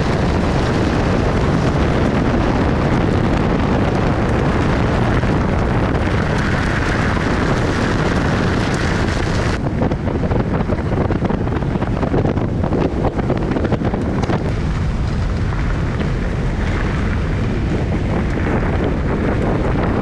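Wind buffeting the microphone of a camera mounted on the outside of a car driving on a gravel road, mixed with tyre and road noise. About ten seconds in the sound changes abruptly and the upper hiss drops away.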